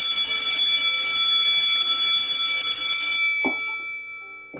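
Electric school bell ringing loudly for about three seconds, then fading away: the bell for the start of the school day. A short knock sounds about three and a half seconds in.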